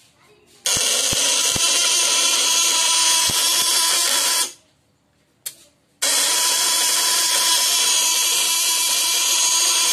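Homemade battery-powered fish-stunner power unit running under a 700-watt load, a loud, steady buzzing hiss with a steady whine in it. It switches on with a few clicks about a second in, cuts off after about four seconds, and comes on again about six seconds in.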